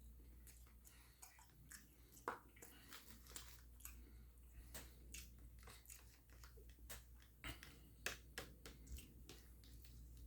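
Quiet, close-up chewing and mouth sounds from someone eating: many small wet clicks and smacks at irregular intervals, over a faint steady low hum.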